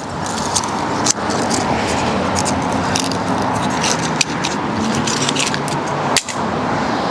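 A steady vehicle engine hum runs throughout. Over it come a few light metal clicks and scrapes from small hand tools and carburetor parts being handled.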